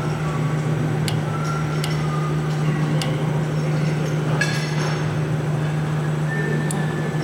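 Torque wrench turning a taper-bushing screw on a bandsaw wheel hub: a few sharp metal clicks and a short creak about four and a half seconds in, the creak of dry, unlubricated screw threads. A steady low hum runs underneath.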